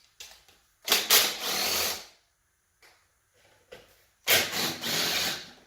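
Cordless drill driver with a socket adapter spinning out oil pan bolts on an LS V8, in two runs of about a second each.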